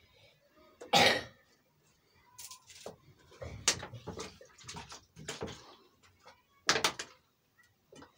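Plastic soft-drink bottles handled on a cloth-covered surface: short crinkles, knocks and rustles as a bottle is picked up and moved. Loudest about a second in and again near seven seconds, with a quicker run of them in between.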